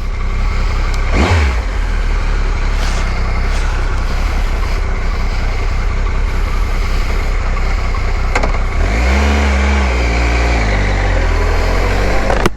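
Triumph motorcycle engine running steadily, its pitch rising and falling about nine seconds in as it is revved.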